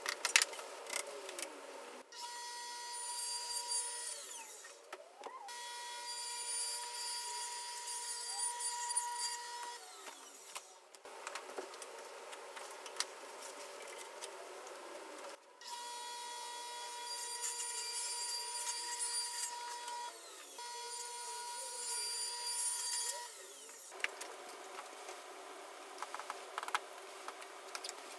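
Table saw running and cutting plexiglass sheet and backing board, a steady motor whine with a hiss over it. It comes in several passes of a few seconds each that cut in and out sharply, with clicks and handling knocks between them.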